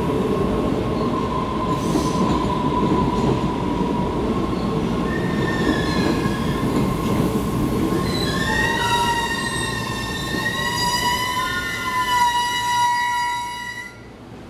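MBTA Red Line subway train pulling into an underground station and braking to a stop: a loud rumble with a steady whine, joined from about five seconds in by high squealing in several pitches that glide as it slows. The noise falls away suddenly near the end as the train halts.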